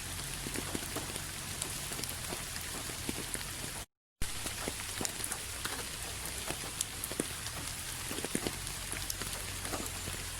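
Steady rain falling, with many separate drop hits standing out from the hiss. The sound cuts out completely for a split second about four seconds in.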